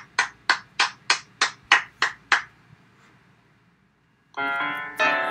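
A quick run of about nine sharp, evenly spaced strikes, roughly three a second. After a short pause, piano music starts near the end.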